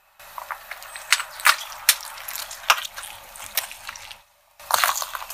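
A car tyre crushing liquid-filled plastic gloves: a dense run of crackling, popping and sharp cracks with wet splatter for about four seconds. After a brief gap, another burst of crackling and cracks comes near the end.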